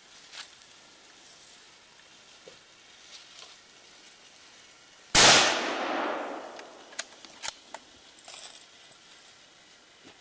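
A single hunting rifle shot about five seconds in, with a long echoing tail. A few sharp metallic clicks and clinks follow as the bolt is worked for the next round.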